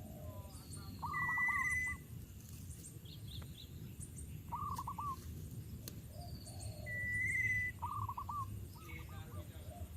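Wild birds calling: groups of four or five quick, down-curving notes repeated every few seconds, and twice a louder trilled note held for under a second, over a low steady rumble.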